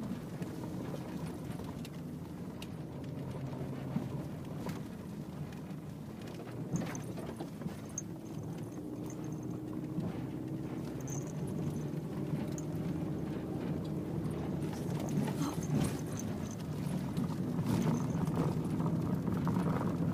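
Car engine and road noise heard from inside the cabin while driving a rough track: a steady low drone with occasional knocks and rattles, getting a little louder near the end.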